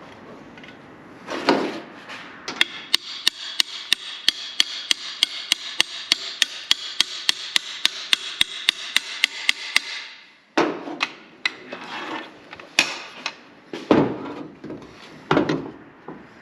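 Hammer tapping in a steady rhythm, about three or four blows a second for some seven seconds, over a steady hiss, then a few irregular, heavier knocks.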